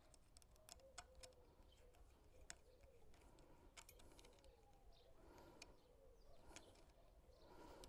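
Faint, near-silent background with a pigeon cooing several times, and scattered light clicks as a metal hose clamp is handled and fitted on a garden hose.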